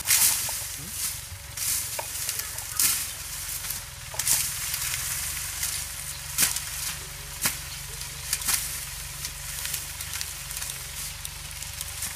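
Tractor engine running steadily as a low rumble, under loud irregular crackling and hissing.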